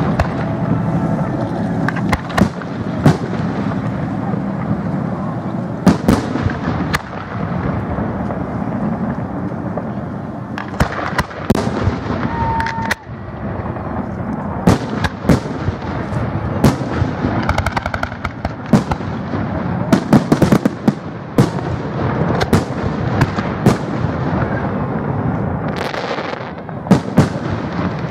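Aerial firework shells bursting in quick, irregular succession: dozens of sharp bangs and pops, some ringing out, over a steady background din.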